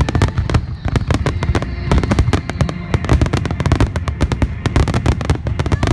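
Fireworks display in a dense barrage: many explosions and crackling reports a second over a continuous low rumble.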